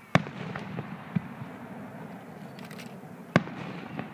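Aerial fireworks shells bursting: two loud booms about three seconds apart, with a few fainter cracks between them.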